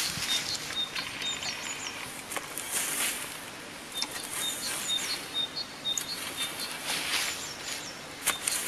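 Cut grass rustling and swishing as it is raked by hand into a pile, in strokes a few seconds apart, with a small bird chirping quick series of short high notes.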